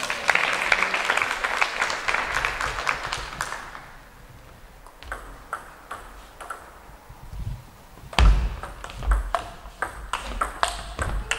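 Spectators applauding for about three and a half seconds, then, after a quieter lull and one loud low thump, a table tennis rally: a ball clicking sharply off bats and table about twice a second.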